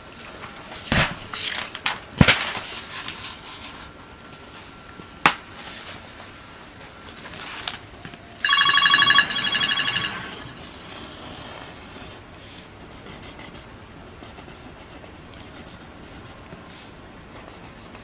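Paper being grabbed and handled, with a few sharp knocks and rustles. Then, about eight and a half seconds in, a short trilling phone ring lasts about a second and a half. Faint pencil scratching on paper follows.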